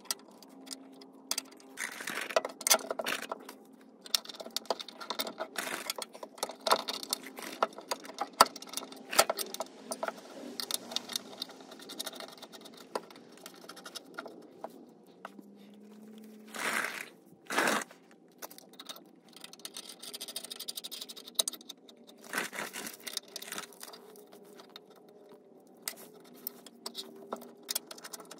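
Metal mounting hardware being handled and fitted: bolts, washers and a steel bracket clinking, scraping and knocking, with two louder short noisy bursts about two-thirds of the way through.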